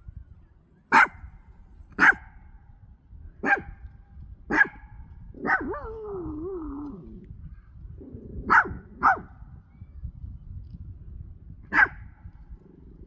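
A Pomchi (Pomeranian–Chihuahua mix) barking in short, sharp single barks, about seven in all with irregular gaps, plus one drawn-out wavering bark about five and a half seconds in. It is alarm barking at trees creaking in the wind, with wind rumble on the microphone underneath.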